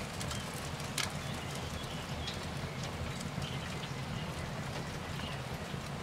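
Wood fire crackling, with scattered sharp pops over a low steady background, and a few faint bird chirps.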